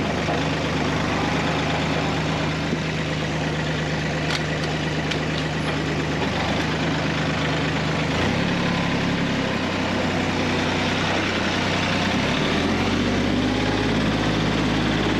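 Bobcat CT2040 compact tractor's diesel engine running steadily while moving dirt, its note shifting several times as the load and throttle change.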